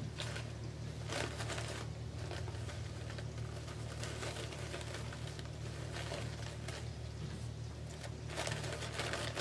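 Poly deco mesh and ribbon loops being handled and pressed into place, giving faint rustling and crinkling, with louder rustles about a second in and near the end, over a steady low hum.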